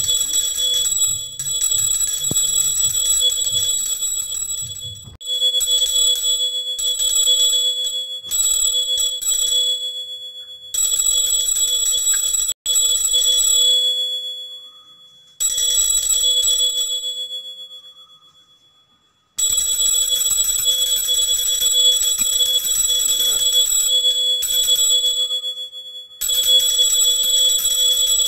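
Puja hand bell (mani) rung continuously for the deeparadhana, a rapid clapper ringing in several bouts. It breaks off briefly a few times, twice it stops and rings away slowly over a few seconds, and then it starts again.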